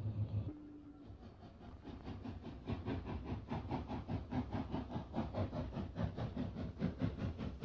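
Steam saddle-tank locomotive working a train, its exhaust beating in an even, hissing rhythm of about five beats a second that builds from about two seconds in. Before that, a diesel shunter's engine hums steadily and stops after about half a second.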